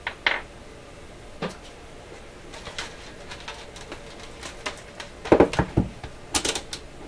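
Clicks and knocks of hands handling a cartridge fuse and test gear on a workbench, with a cluster of heavier knocks about five seconds in and a short clatter just after.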